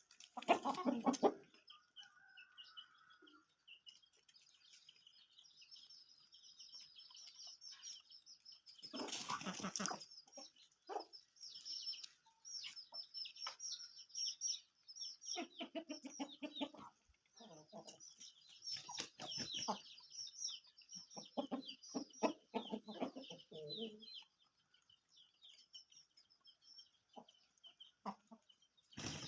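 Aseel chickens: many short, high chick peeps run on, with bursts of lower clucking, most of them in the second half. There is a short burst of noise about nine seconds in.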